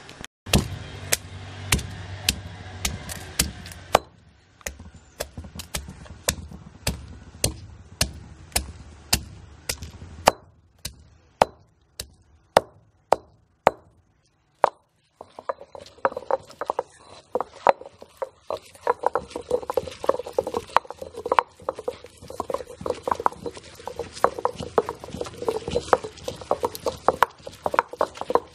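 Heavy stone pestle pounding shallots, dried red chillies, tomato and garlic in a stone mortar. Sharp knocks come about two a second for the first half, then from about halfway the pounding turns quicker and duller as the ingredients are crushed.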